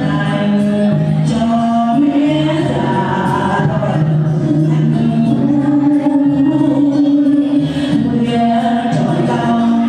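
Singing with musical accompaniment, the voices holding long notes that step from one pitch to the next.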